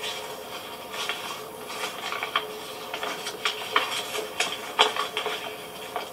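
Paper packets and a thin plastic bag rustling and crinkling as they are handled, pulled out of a cloth pouch and unfolded, with irregular sharp crackles that come thicker in the second half.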